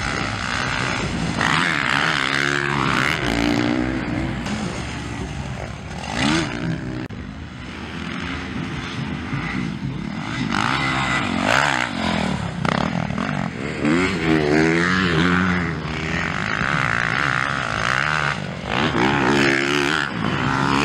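Motocross dirt bike engines racing, their pitch rising and falling sharply again and again as the riders open and close the throttle.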